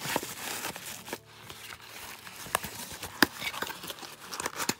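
Bubble wrap and card packing crinkling and rustling as they are handled in a cardboard box, with a few sharp clicks, the loudest a little after three seconds in.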